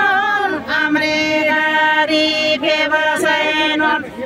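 Women singing a Tamang fapare selo juhari song with long held notes and small bends in pitch; the singing stops near the end.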